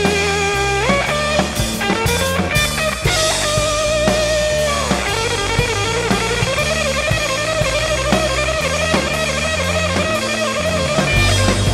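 Instrumental rock music from a band: a lead guitar line with bends and vibrato over bass and a drum kit, sliding up in pitch about a second in.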